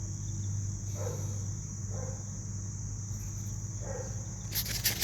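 Crickets chirring steadily over a constant low hum, with a few faint, distant dog barks. A burst of sharp clicks comes near the end.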